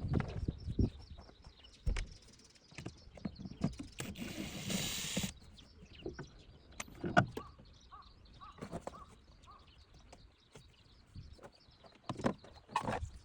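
Scattered clicks and knocks of hands and tools working a plastic interior cover panel loose in a car, with a brief hiss about four seconds in.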